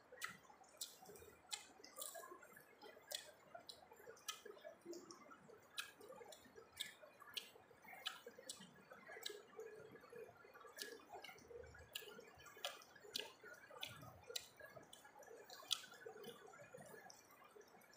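Faint, close-up wet mouth sounds of a person chewing rice: irregular smacks and clicks, about one or two a second.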